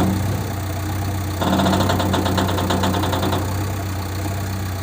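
Diesel engine of a JCB 3DX backhoe loader running steadily at idle, with a rapid, even ticking for about two seconds in the middle.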